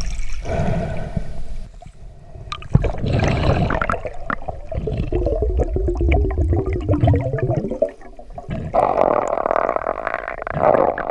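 Underwater gurgling and warbling water noise, with a louder, denser hissing stretch in the last couple of seconds.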